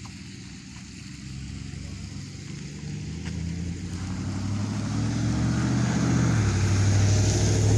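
A plumber's work vehicle approaching, its engine growing steadily louder as it draws near.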